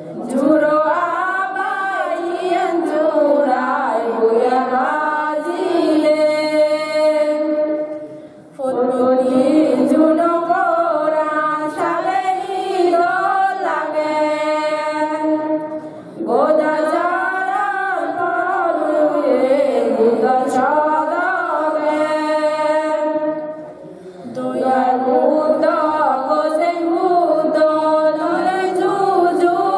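A voice chanting a devotional melody over a steady held tone, in phrases of about eight seconds with short breaks between them.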